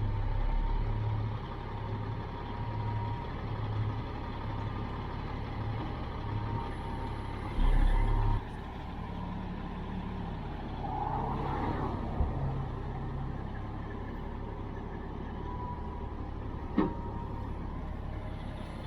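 Heavy diesel equipment idling steadily with a low pulsing hum. There is a brief louder low rumble about eight seconds in and a single sharp click near the end.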